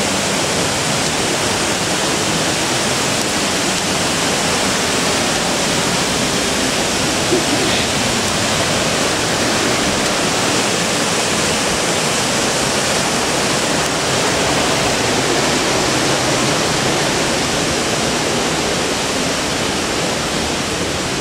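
Stream water rushing over rocks in a steady, loud rush.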